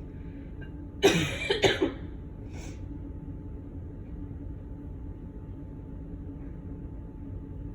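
A woman sneezing, a sudden explosive burst about a second in with a second sharp peak just after; an allergic sneeze set off by cigarette smoke.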